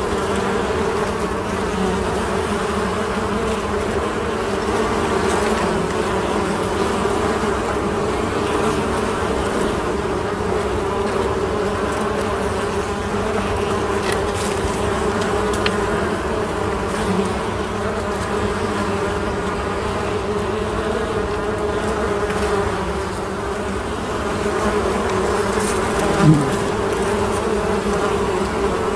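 Many honeybees flying at a hive entrance, their wingbeats blending into a steady buzzing hum. Near the end one bee passes close by, a brief louder buzz.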